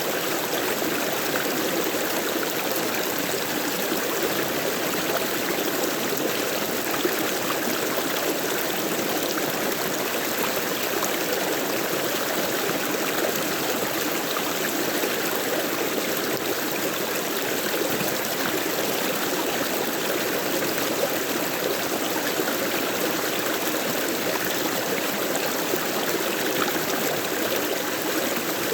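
Flowing stream water running steadily over rocks, a continuous babbling rush without change.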